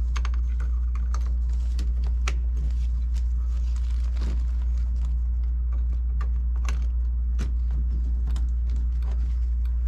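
Small parts being handled and fitted, likely the car's hazard flasher units going in: irregular light clicks and rattles over a steady low hum.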